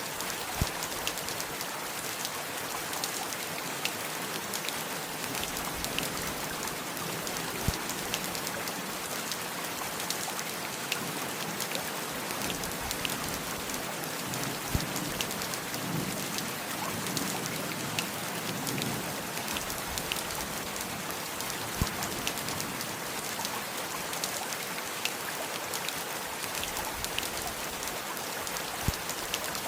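Steady heavy rain, with individual drops ticking close by. A low rumble swells and fades about halfway through.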